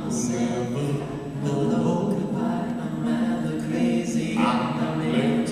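Live band singing in harmony, several voices holding long sung notes with little instrumental backing.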